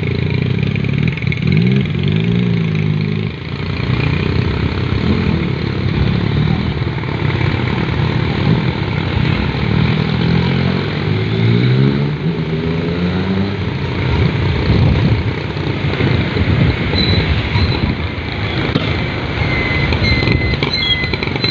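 Honda XRM 125 motorcycle's single-cylinder engine running in slow traffic, its pitch rising and falling as the rider speeds up and eases off, over the steady noise of the road and surrounding vehicles.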